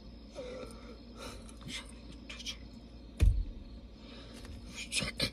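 Soft rustles and small taps from hands moving while signing in a car seat, with one dull thump about three seconds in.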